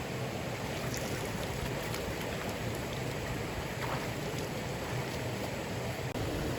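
Steady rush of flowing water, with a few faint clicks over it and a brief drop-out about six seconds in.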